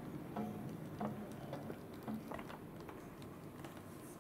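Hand-cranked plastic Sushi Shokunin toy sushi machine clicking as its crank turns the plastic rollers that press out a portion of rice. The clicks are irregular and thin out after about two and a half seconds.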